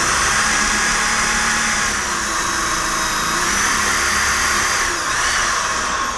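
Electric drill running steadily at full speed, boring a pocket hole into a wooden board with a collared pocket-hole bit through a clamped jig. The motor's whine dips briefly in pitch about five seconds in as the bit loads up.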